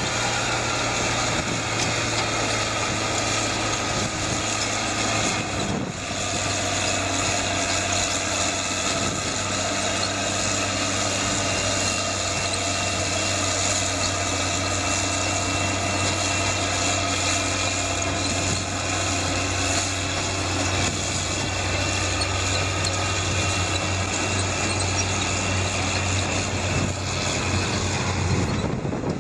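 Heavy diesel machinery engine running steadily, with a low hum and mechanical clatter; the sound shifts briefly about six seconds in.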